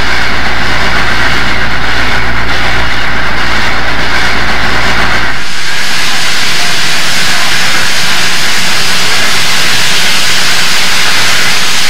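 Southern Pacific AC-11 cab-forward steam locomotive (a 4-8-8-2 articulated) working hard up a steep grade: loud, steady exhaust and steam hiss. A deep rumble beneath it drops out suddenly about five seconds in, leaving the steady hiss.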